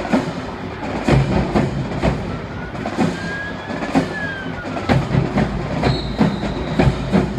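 Marching band drumline playing a steady cadence, about two hits a second. A faint whistling tone rises and then falls about three to four seconds in.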